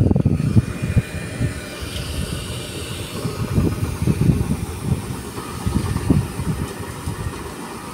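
Voot VS 150 R Bp battery-powered ride-on road sweeper running as it drives across paving: a steady mechanical whir and hiss from its suction fan and brush motors over an uneven low rumble from the rotating side brushes scrubbing the ground.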